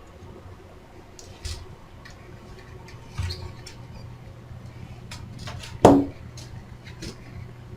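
Packaging being handled as a circuit board is unwrapped from bubble wrap and tape: scattered small clicks, crinkles and rustles, with one louder knock about six seconds in. A faint steady low hum runs underneath.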